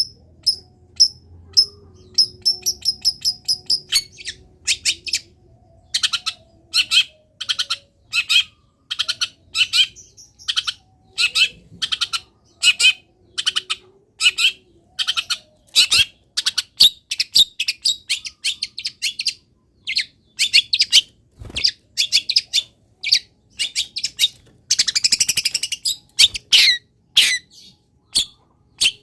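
Long-tailed shrike (cendet) singing in full voice: thin high whistles at first, then a long run of short, sharp chattering notes about two a second, with a dense burst of chatter near the end. This is the loud, sustained song that keepers call gacor, with mimicked phrases (isian) in it.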